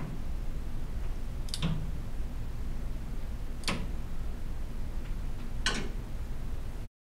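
Hand socket ratchet clicking on its back-swings while snugging bolts on a Chrysler 440 big block's water pump housing: four short bursts of clicks about two seconds apart, over a low steady hum.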